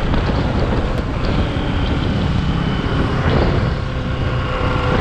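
Motorcycle riding along the road: engine running under a loud, steady rush of wind on the microphone.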